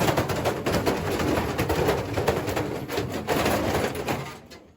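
Washing machine running with a loose ballast weight in its drum, a dense, loud clatter of banging and rattling that dies away near the end.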